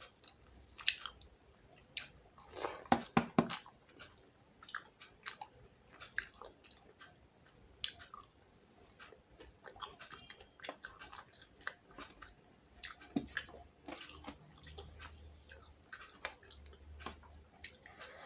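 A person chewing and eating fish with rice close to the microphone: wet mouth smacks and small crunches at uneven intervals, with the loudest cluster of bites about three seconds in.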